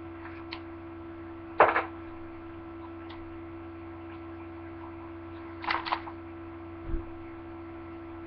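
Steady electrical mains hum. Two brief handling noises break it, about one and a half seconds in and near six seconds, and a low thump comes just before seven seconds.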